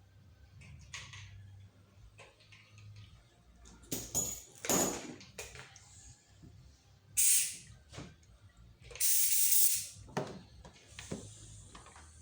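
Two short hissing blasts, one about half a second long and a longer one of about a second, among scattered clicks and knocks of tools and parts being handled in the engine bay.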